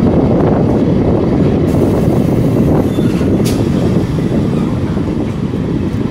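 EMU local train running on the track, heard from on board: a loud, steady rumble of the carriage and its wheels on the rails, easing slightly after about four seconds.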